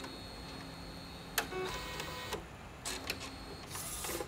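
Epson Stylus Photo 1400 inkjet printer running its initial head-cleaning cycle, which pumps DTF ink through the print head to prime it. A steady mechanical whir carries sharp clicks from the mechanism, one about a second and a half in and a few more around three seconds, then a short rush of noise near the end.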